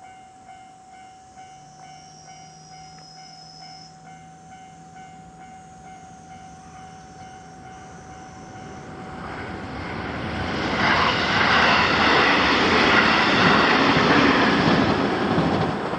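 Level-crossing warning bell ringing in a steady repeating pattern; from about nine seconds in, a train approaches and passes close by, its rumble building until it drowns out the bell.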